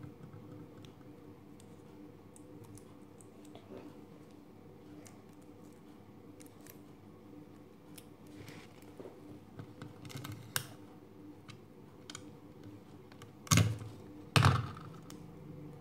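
Sticky tape being handled and torn into pieces: faint scattered clicks and crackles, then two louder short sharp sounds about a second apart near the end.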